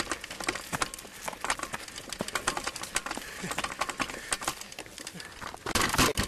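Irregular crunching and crackling of footsteps and movement through dry brush and gravel on a dirt trail, with clicks and knocks from the camera being jostled. A louder burst of rustling and handling noise comes just before the end.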